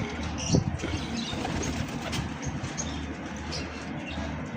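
Domestic pigeons cooing, with small birds chirping now and then.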